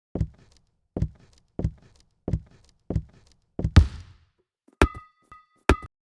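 A series of dull knocks, about two-thirds of a second apart, then a louder knock with a short ringing tail nearly four seconds in. Two sharp clicks with a brief ringing tone follow near the end.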